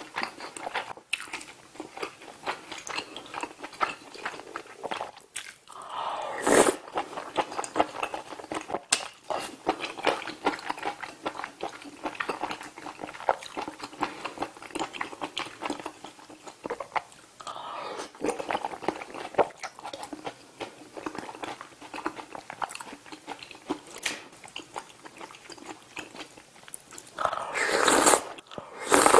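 Close-miked wet chewing of soft tofu stew, rapid smacking mouth sounds, with a loud slurp of noodles drawn up from the stew near the end and another brief loud burst about six seconds in.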